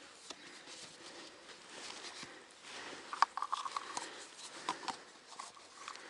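Small hard objects being handled: scattered light clicks, then one sharp click about three seconds in followed by a quick run of small rattling clicks, and a couple more clicks near the end.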